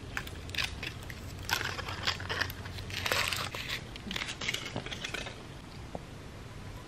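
Crinkly foil wrapper being peeled and crumpled off a miniature chocolate peanut butter cup, in quick crackling rustles that are loudest about three seconds in and stop about five seconds in.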